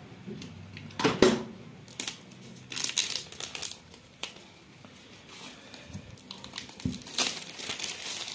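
Clear plastic shrink-wrap crinkling and tearing as it is cut open with a box cutter and peeled off a smartphone box, in a few bursts: about a second in, again from about two to four seconds, and near the end.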